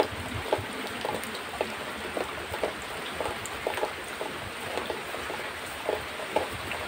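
A cow being milked by hand into a plastic bucket: streams of milk squirting from the teats and splashing into the milk already in the bucket, about two squirts a second, over a steady hiss.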